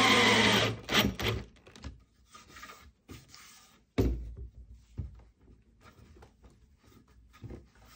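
Cordless drill driving a screw into a wooden cabinet top, its motor pitch falling before it stops under a second in. A few knocks on the wood follow, the loudest a sharp thunk about four seconds in, then light tapping and rubbing.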